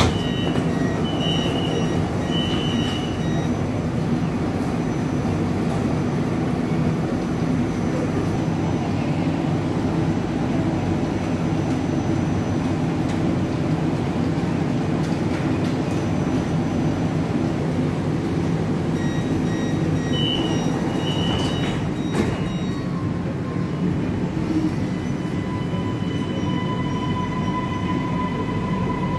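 Inside an MRT train car at a station stop: a steady low rumble, with a short series of high electronic door-chime beeps as the doors open. About two-thirds of the way through a second chime sounds, followed by a single thud as the doors shut. Near the end a steady motor whine sets in as the train starts off.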